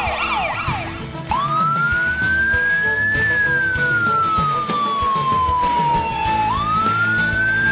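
Ambulance's electronic siren: a fast yelp that changes about a second in to a slow wail. The wail rises for a couple of seconds, falls slowly, then starts to rise again.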